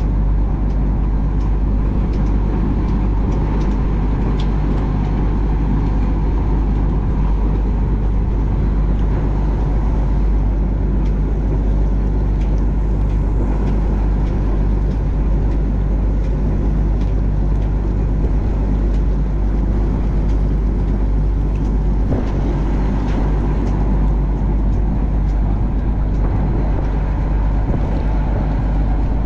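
Fishing boat's engine running steadily at one unchanging pitch.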